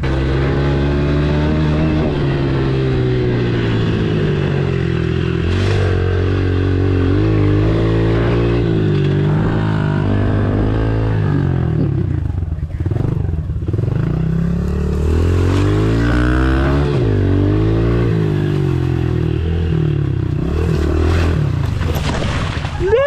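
Pit bike's small single-cylinder engine revving up and down as it is ridden hard over rough grassy ground, the pitch rising and falling again and again. Near the end it tumbles into the grass in a crash.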